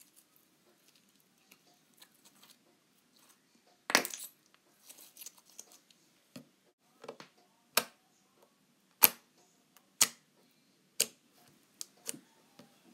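Foam squishy toys being squeezed and pressed on a wooden tabletop: faint rustling, then a string of sharp taps, the loudest about four seconds in, then roughly one a second toward the end.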